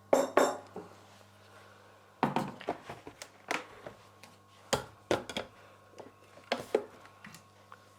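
Scattered light knocks and clicks as roasted cumin and coriander are added to a mixer-grinder jar and the jar is handled, with a short ringing clink at the start.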